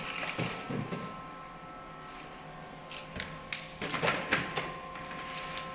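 Steady hum of factory machinery, with a few light knocks and clatters as plastic sheets and rings are handled and stacked, the clearest between about three and four and a half seconds in.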